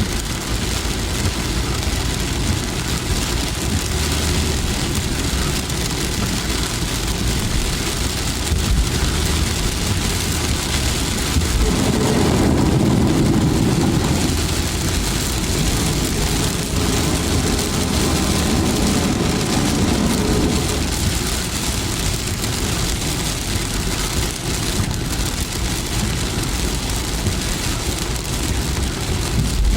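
Heavy rain falling on a car, with a vehicle's engine and road noise running steadily beneath. A louder low rush swells up near the middle and again a few seconds later.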